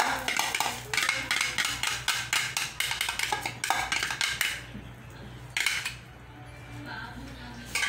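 Metal spoon scraping and tapping against a glass mixing bowl in quick strokes, working out the last of the egg batter, then two single knocks.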